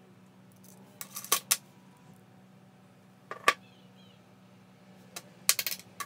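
Small steel impact-driver parts (hammer, ball bearing, spring) clinking against each other in the hands: clusters of sharp metallic clinks with a short ring about a second in, at about three and a half seconds, and again near the end as a ball bearing is set down on the floor.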